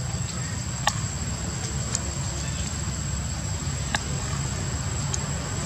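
Outdoor ambience: a steady low rumble under a continuous high-pitched insect whine, with four sharp clicks spread through it.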